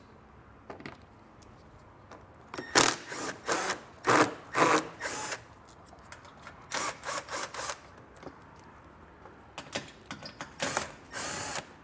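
Cordless power driver with a 7mm socket, run in a series of short bursts to back out the small screws holding a plastic underbody shield.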